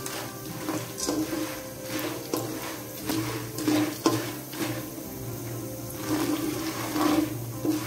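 Popcorn kernels scraping and rattling in hot oil as a silicone spatula stirs them around a nonstick pan, in irregular strokes, with steady music underneath.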